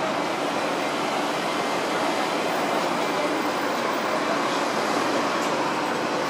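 Steady running noise heard aboard a Hong Kong double-decker electric tram, an even rumble and hiss with no distinct clicks, squeals or bells.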